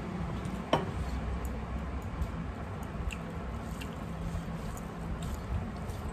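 Hands kneading rice and curry on metal plates, with soft wet squishing and chewing, and a sharp click about three-quarters of a second in. A low steady hum runs underneath.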